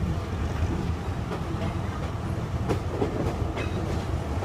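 State Railway of Thailand passenger train running, heard from on board: a steady low rumble of wheels on track, with a few scattered clicks of the wheels over rail joints.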